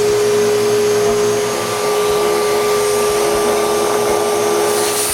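Electric power sander running steadily on a wooden rack, a loud whirring hiss with a steady hum, cutting off at the very end. A brighter high hiss builds in the second half.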